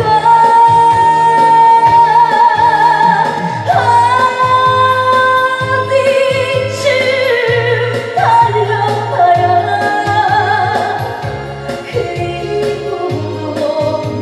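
Korean trot song: a singer holding long notes with vibrato over electronic organ backing with a steady bass beat. The voice drops away after about eleven seconds, leaving the organ.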